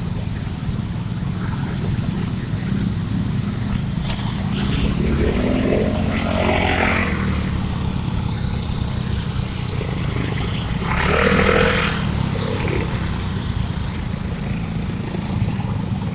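Motorcycle engines and tyre noise in street traffic, a steady low rumble. Twice the sound of a nearby vehicle swells up briefly and fades again.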